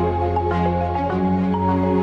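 Background music: soft electronic track with mallet-like notes over a held bass.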